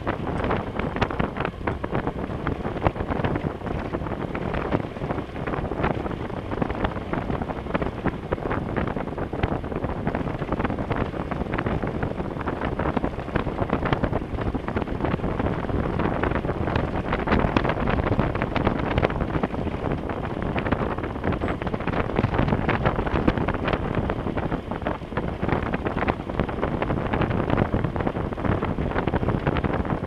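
Adventure motorcycle riding on a loose gravel road: wind noise on the microphone over a steady rumble of tyres, with a constant crackle of small ticks from the gravel.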